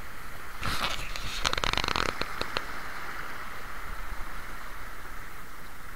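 Rushing river water through a shallow rapid around a paddled wooden boat, with a run of splashes and sharp knocks about a second in as the paddle strikes the water.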